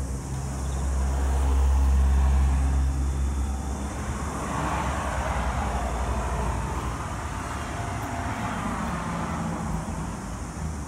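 Motor traffic going by: a deep engine rumble that swells about two seconds in, then the hiss of a vehicle passing, rising and fading in the middle.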